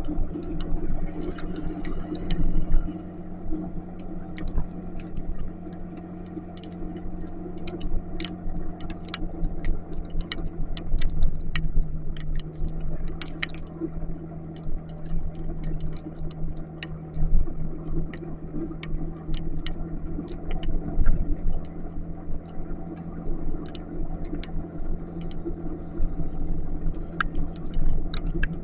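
Motorcycle engine running steadily at cruising speed over a low rumble of wind and road, with frequent sharp ticks of raindrops striking near the microphone.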